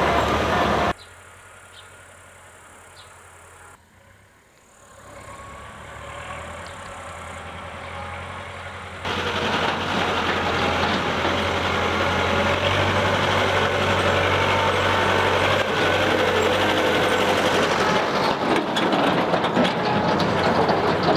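Tractor engine running steadily. The sound drops sharply about a second in, fades back up, and returns to full level about nine seconds in.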